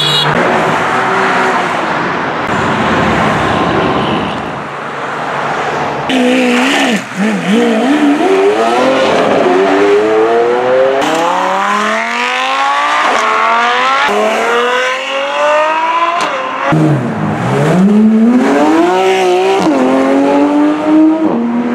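Several high-performance sports cars accelerating hard one after another: a passing rush of engine and tyre noise at first, then engines revving up through the gears in rising sweeps broken by upshifts. Near the end a Gulf-livery Porsche 911 GT3 RS pulls away.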